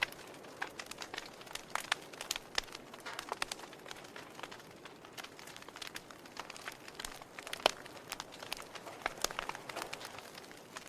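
Wood fire burning in a fireplace, crackling with irregular sharp pops over a soft hiss, one pop louder than the rest late on.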